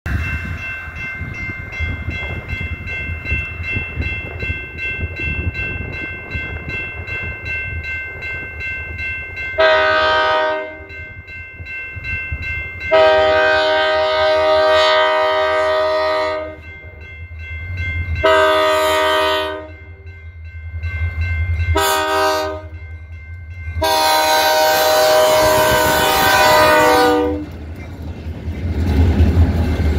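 Railroad grade-crossing bell ringing rapidly. From about ten seconds in, the lead diesel locomotive's multi-tone air horn sounds five blasts for the crossing, the second and last of them long. Near the end, the low rumble of the SD40-series diesel locomotives grows as they pass close by.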